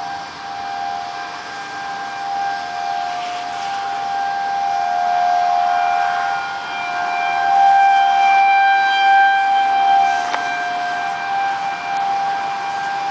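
Outdoor tornado warning sirens sounding a steady tone, a tornado warning signal. Several close pitches overlap, and the sound swells louder past the middle and eases off near the end.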